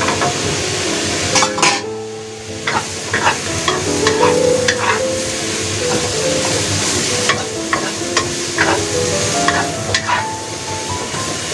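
Sliced carrots and button mushrooms sizzling in a wok while a wooden spatula stirs and tosses them, with irregular clicks and scrapes of the spatula against the pan. Soft background music plays underneath.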